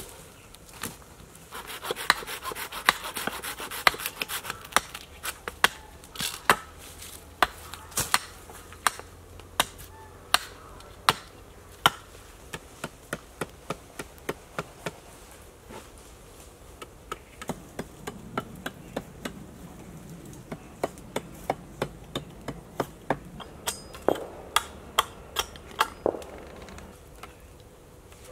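Repeated sharp blows of a hatchet chopping into wooden poles on a log, about one to two strikes a second with short pauses between runs.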